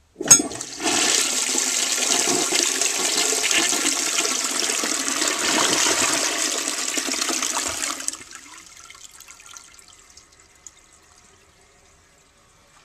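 1943 Sentry Sanitary Corporation forward-trap washdown toilet on a Standard 4050 tank flushing. A sharp click comes first, then a loud, even rush of water for about seven seconds. The rush drops off suddenly about eight seconds in and fades to a faint trickle.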